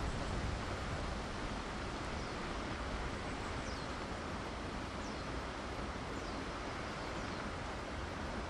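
Steady outdoor background noise, like wind or distant hiss, with about six faint, short, falling chirps from a small bird scattered through it.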